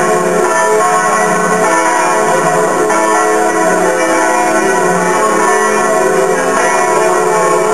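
Seefeld Parish Church bells ringing together in a continuous peal, many overlapping tones sounding without a break.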